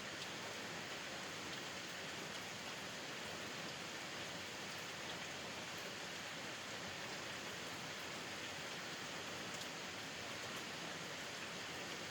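Steady rain falling and pattering on surfaces around a porch, an even hiss with faint scattered drop ticks.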